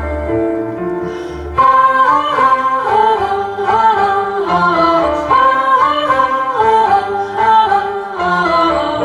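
A slow French song played back over a high-end stereo system. A fuller, louder melody line comes in about one and a half seconds in, over the bass and lower accompaniment.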